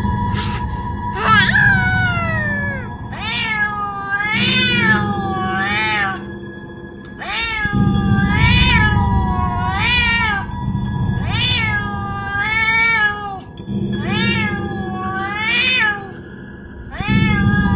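A domestic cat meowing over and over: about a dozen rising-and-falling meows, roughly a second apart, over background music.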